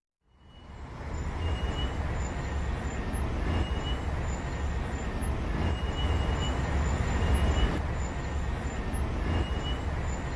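Steady rumbling background noise that fades in over the first second, with a hiss above it and faint short high chirps recurring every second or two.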